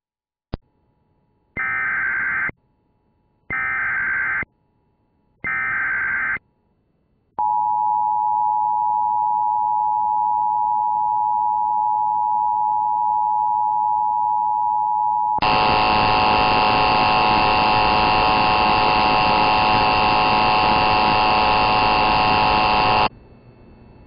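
Emergency Alert System flash flood warning tones: a click, then three one-second bursts of SAME header data screech. About seven seconds in, the steady two-tone attention signal (853 and 960 Hz) begins. About halfway it gives way to a louder, harsher tone with many overtones, which cuts off suddenly near the end.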